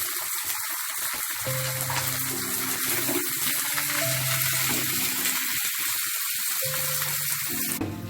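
Boiled vegetables sizzling steadily as they fry in hot oil with fried onions in a kadai; the sizzle cuts off suddenly near the end. Background music plays underneath.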